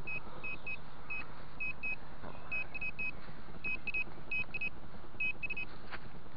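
Handheld metal-detecting pinpointer beeping in quick runs of two to four short, high beeps as its tip is worked through the soil and leaf litter of a dug hole, signalling metal close by: here a buried coin. There is a single sharp click near the end.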